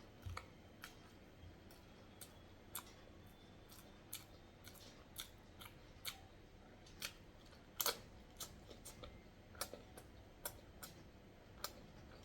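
Close-miked eating sounds of someone chewing boiled eggs coated in sauce: short, sharp, wet mouth clicks and smacks, one or two a second at an uneven pace, with a louder double click about eight seconds in.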